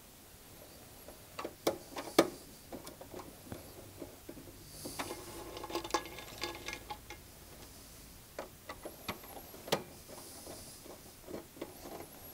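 Small clicks and taps from a screwdriver and wire ends being worked into a drive's control terminal block, with light handling rustle. The sound is irregular, with the sharpest clicks about two seconds in and near ten seconds.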